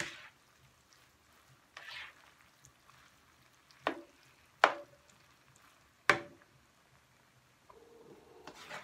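Plastic spatula stirring fried rice in a nonstick skillet: soft scraping, then three sharp knocks of the spatula against the pan, a little under four, about four and a half, and about six seconds in.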